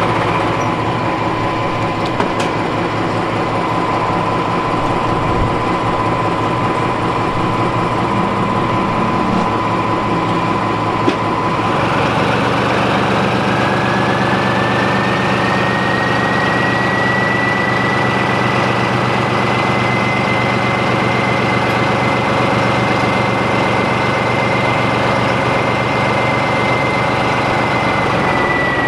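Class 14 diesel-hydraulic locomotive's Paxman Ventura engine ticking over, then about twelve seconds in it opens up: the engine note strengthens and a high whine climbs and holds as the locomotive pulls away.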